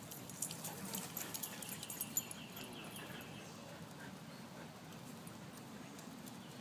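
Dogs trotting and scuffling over wood mulch, with scattered light clicks and patters in the first two seconds or so. A fast repeated chirping sounds for about a second and a half in the middle.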